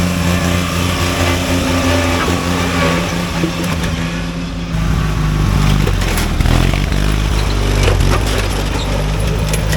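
Riding lawn mower engines running under racing load, with a steady engine drone that changes abruptly about halfway through to a heavier low rumble. A few sharp knocks sound near the end.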